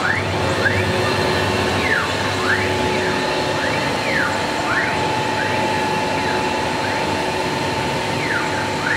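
CIMTECH 1325 CNC wood router running: a steady whine, with short whines that repeatedly rise and fall in pitch as its axis motors speed up and slow down.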